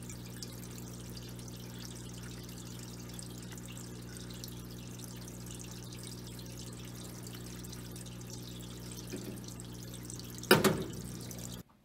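Parts washer pump running with a steady electric hum while solvent streams out of the nozzle and splashes over a part being cleaned. A brief loud clatter comes near the end, then the sound cuts out.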